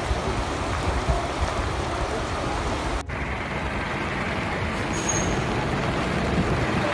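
Floodwater rushing through a town street, a steady noisy rush that breaks off suddenly about three seconds in as a second recording of flowing floodwater takes over.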